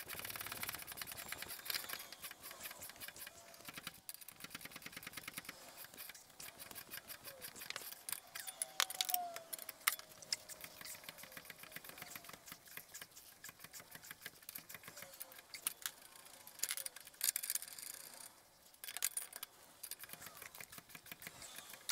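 Ratcheting wrench clicking in quick runs as it turns the nut on a bearing press tool, drawing a new wheel bearing into its carrier.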